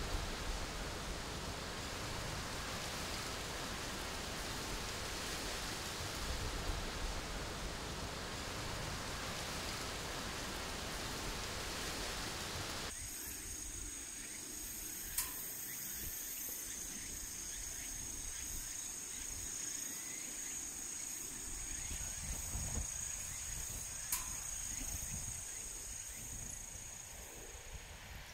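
Outdoor ambience: a steady rushing noise, which cuts about halfway through to a quieter background of insects droning steadily at a high pitch. Two short, sharp clicks come later.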